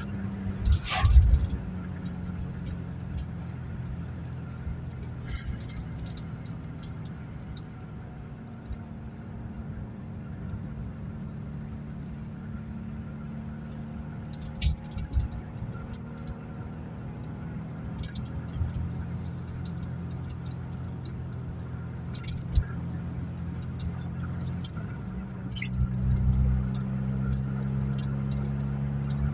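Ford Fiesta Mk2 XR2's carburetted 1.6-litre four-cylinder engine heard from inside the car while cruising: a steady engine drone under tyre noise. A few short knocks come about a second in and again around fifteen seconds in. Near the end the engine note grows stronger as the car pulls harder.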